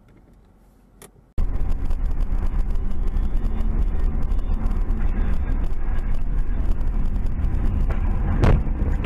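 Steady road and engine rumble of a moving car, heard from inside the cabin, starting abruptly after a quiet first second or so. A single thump comes near the end.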